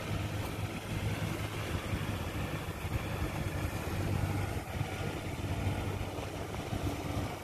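Diesel engine of a rice-paddy mud-levelling machine (cầu cào) running steadily, a low even drone.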